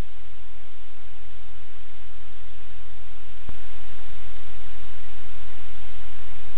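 Steady, loud hiss with a low electrical hum, the noise of a live audio feed with no other sound in it. A single sharp click about three and a half seconds in, after which the hiss is a little louder.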